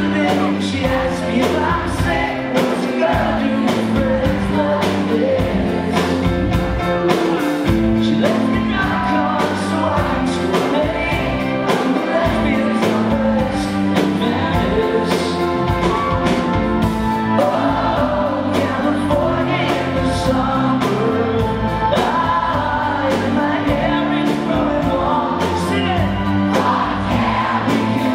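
Live rock band playing a song: piano, drums, electric guitar and organ, with a man singing lead. Heard from within the audience, with a steady drum beat throughout.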